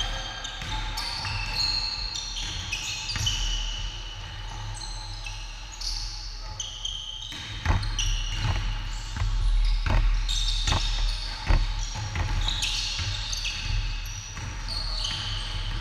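Sneakers squeaking sharply on a hardwood basketball court as players cut and move. Midway through, a basketball is dribbled, giving a string of sharp bounces about two a second.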